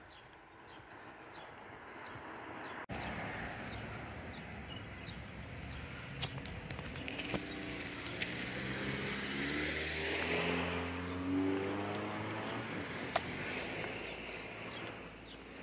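A motor vehicle drives past, its engine and tyre noise building to a peak about ten to eleven seconds in and then fading away.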